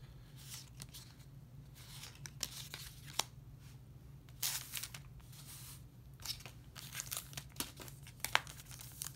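Yu-Gi-Oh trading cards being handled and flipped through by hand: faint scattered rustles and small snaps of card stock, over a steady low hum.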